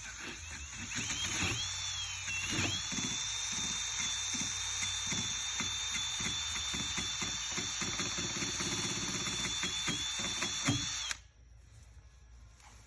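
Power sander with a spinning pad grinding paint off a van hood's steel. The motor whine dips in pitch under load about two and a half seconds in, with an uneven low chatter beneath it, and the tool shuts off abruptly about eleven seconds in.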